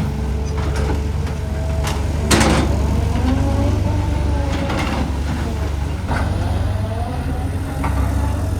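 Cat 320GC excavator's diesel engine running steadily, with a hydraulic whine that rises and falls in pitch as the machine works. Sharp metallic clanks come now and then, the loudest about two seconds in.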